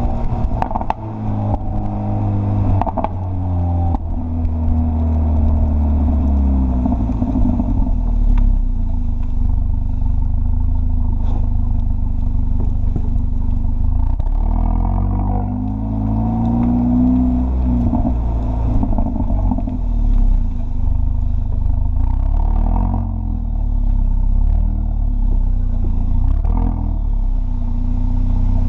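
2015 Mercedes-Benz CLA45 AMG's turbocharged 2.0-litre four-cylinder running loud through its exhaust, the revs falling and rising several times, with scattered sharp exhaust pops and crackles.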